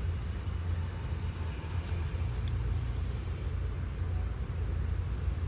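Steady low rumble of background noise, with two brief faint clicks about two seconds in.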